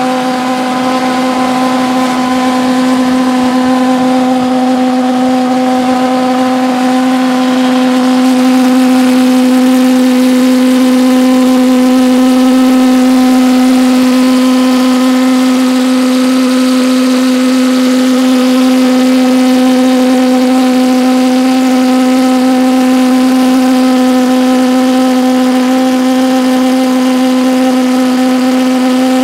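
Homemade Chinese-design valveless pulse jet engine running steadily on propane: a loud, continuous drone held at one pitch, with a row of overtones above it.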